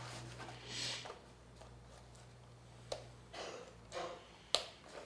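Quiet handling of a pistol and an elastic belly-band holster: a few soft rustles and small clicks, the sharpest near the end. A low steady hum stops a little past halfway.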